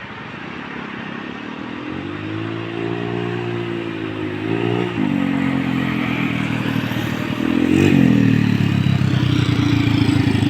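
Yamaha Mio scooter's single-cylinder engine through an Apido 'chicken pipe' aftermarket exhaust, revving. The note rises and falls several times, dips sharply about five seconds in, then climbs to a louder steady pitch after about eight seconds.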